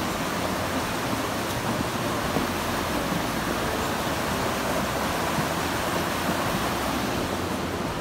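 Floodwater of a swollen, muddy mountain river rushing steadily downstream.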